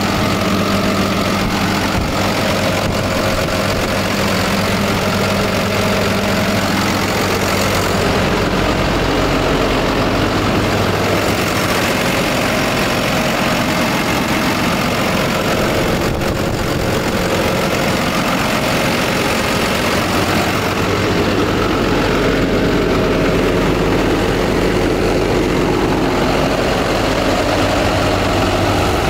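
Cummins ISB 6.7-litre six-cylinder diesel engine of a Freightliner M2 106 truck idling steadily.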